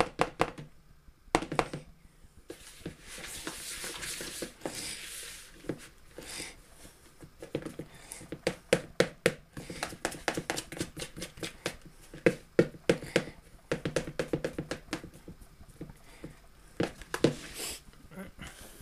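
A spoon knocking and scraping against a plastic mixing bowl while stirring crumbly biscuit mixture, in runs of quick knocks several a second, with a stretch of softer scraping about three to six seconds in.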